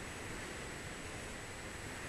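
Steady background noise, a low rumble and hiss with a faint constant high whine, with no distinct events.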